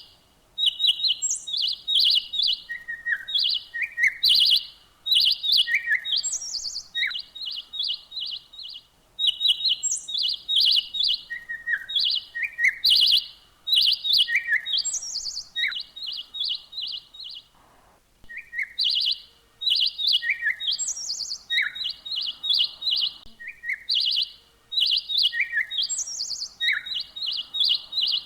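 Small birds chirping in quick runs of short, high notes, mixed with shorter falling calls lower down and occasional higher notes. The same sequence of calls comes back about every nine seconds.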